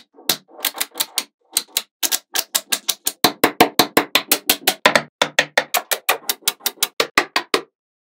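Small magnetic balls snapping together one after another in sharp clicks. They come a few a second at first, speed up to about seven a second, then stop shortly before the end.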